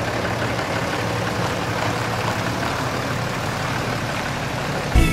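Heavy-duty dually pickup truck's engine running steadily.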